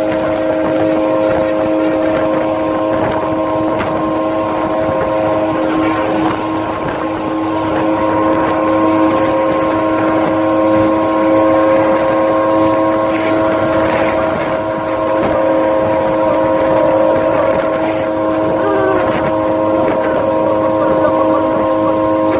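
Engine of a moving vehicle droning at a steady cruising speed, holding a constant pitch, with wind rushing past.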